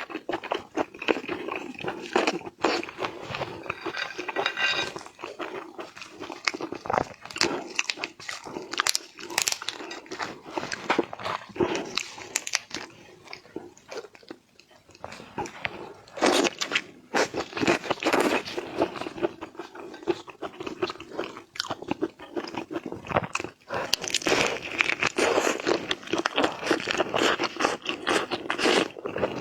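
Eating shrimp: repeated crunching bites and chewing, with many sharp, irregular crackles.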